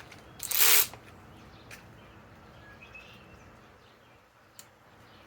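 Ratcheting torque wrench cranked on a nut while tightening it: a quick half-second burst of rapid ratchet clicks about half a second in, then a few faint single clicks.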